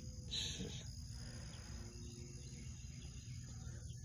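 Outdoor background noise with a steady high-pitched insect drone and a low rumble, and a short high sound about half a second in.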